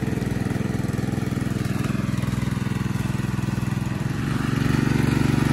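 Two-wheel walking tractor (pat pat) with a single-cylinder engine running steadily with a fast, even chugging as it is driven along. About four seconds in, the engine note shifts and grows a little louder.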